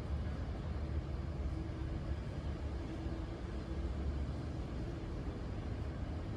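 Steady low rumble of an approaching train, with a faint tone coming and going in the background.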